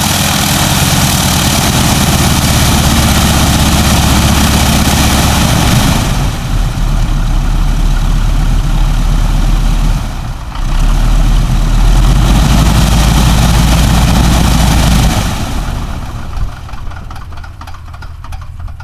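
North American Harvard's nine-cylinder Pratt & Whitney R-1340 Wasp radial engine idling on the ground with the propeller turning, a deep, loud rumble. Over the last few seconds its sound falls away.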